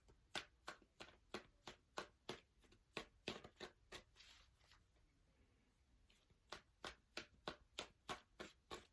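Tarot cards being shuffled by hand: a run of short card slaps about three a second, pausing for about two seconds midway before starting again.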